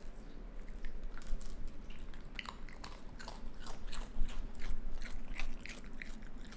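A raccoon chewing and crunching Goldfish crackers: a quick, irregular run of small crisp crunches.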